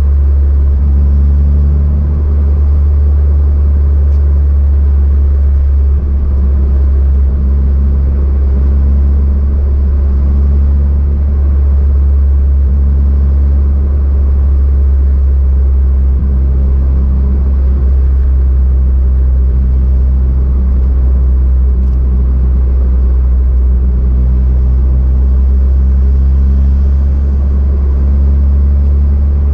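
Car being driven: a steady, loud, low engine and road rumble.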